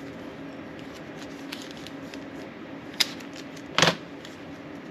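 Hands handling small parts on a workbench: faint ticks, a sharp click about three seconds in, then a short, louder rustling clatter just under a second later, over a steady low hum.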